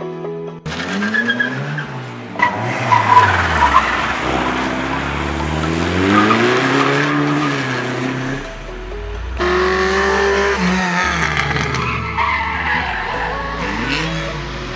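Car engines revving hard and dropping between gears at full throttle, with tyres squealing in the corners. About nine seconds in, the sound switches abruptly to a different car's engine.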